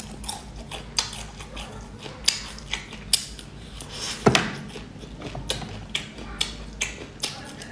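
Close-miked eating: crunchy bites and chewing of skewered food, an irregular run of sharp cracks with one loud crunch a little past the middle.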